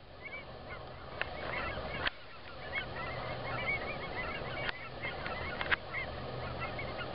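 A large flock of birds calling continuously in a dense chorus of many short, overlapping calls, with a few sharp clicks.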